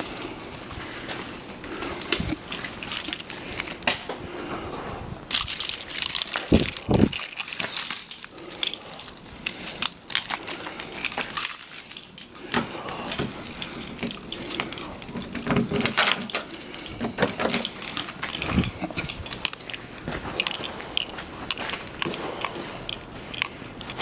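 Keys jingling, with irregular scraping, rustling and knocks from handling a sleet-coated car.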